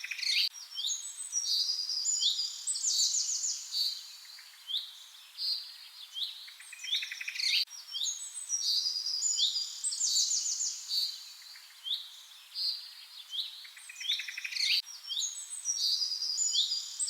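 Songbirds chirping and singing: runs of short down-sweeping chirps and quick trills, the same sequence of phrases repeating about every seven and a half seconds.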